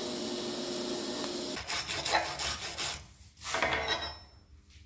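TIG welding arc on stainless steel hissing steadily for about a second and a half, then cutting off. After it comes rubbing and scraping in two bursts as the welded stainless piece is handled on the steel welding table.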